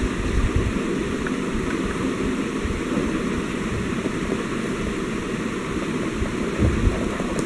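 Steady rumbling background noise with no clear tone, with a couple of low bumps near the end.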